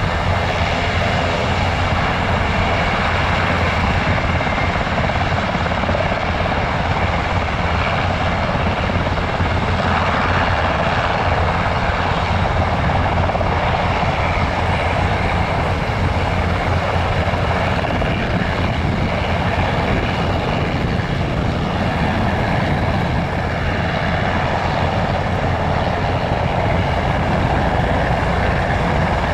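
Eurocopter Cougar military helicopter hovering low and lifting away: its main rotor and twin turbine engines running steadily, loud and close.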